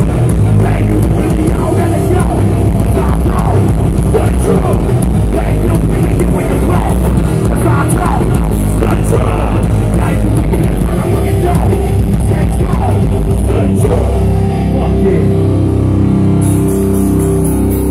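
Hardcore punk band playing live through a festival PA: electric guitars, bass and drum kit, loud and heavy in the low end.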